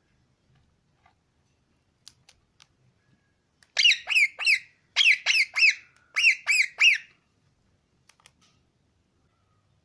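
Pet parrot squawking: three quick bursts of three short, harsh calls, each call dropping in pitch.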